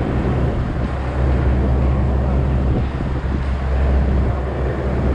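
Aircraft engines droning as a steady, loud low rumble.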